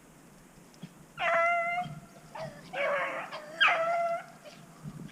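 Rabbit dogs baying: three drawn-out, pitched bawls about a second apart, the middle one rougher, as the pack runs a rabbit's track.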